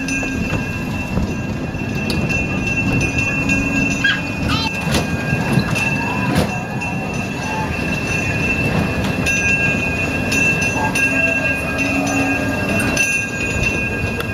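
Steady rumble of a moving vehicle with a continuous thin, high-pitched squeal over it.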